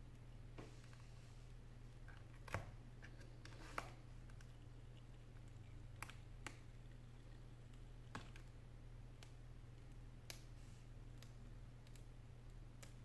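Faint, scattered clicks and ticks of a thin metal pry blade and tool working along the edge of an iPad 4, separating the touchscreen glass from the aluminium frame, about eight in all, the sharpest about two and a half seconds in. A low steady hum runs underneath.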